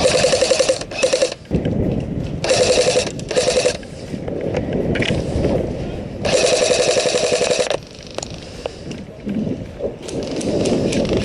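Bursts of rapid full-auto fire from airsoft guns, each a fast mechanical rattle: two short bursts at the start, two around three seconds in, and a longer one of about a second and a half around six seconds in.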